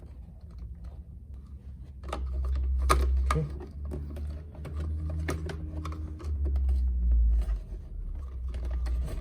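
Scattered light clicks and handling noises as hands secure the desk bike's console cables with a tie, over an uneven low rumble.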